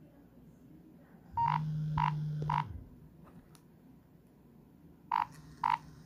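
Nokia 6016i ringing for an incoming call with a monophonic ringtone: three short, high beeps about half a second apart, repeated about three and a half seconds later. A low steady buzz from the phone's vibrating alert runs under the first three beeps.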